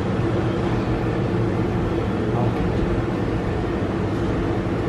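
Steady low mechanical hum with a faint drone, unchanging throughout.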